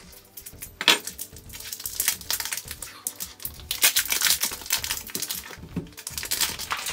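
Clear plastic wrapping of packaged corn on the cob crinkling and crackling irregularly as it is slit with a knife and the cobs are pulled out, with a sharp crackle about a second in.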